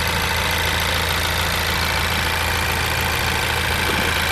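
2017 Honda Civic Si's 1.5-litre turbocharged direct-injection four-cylinder engine idling steadily, heard close up in the open engine bay.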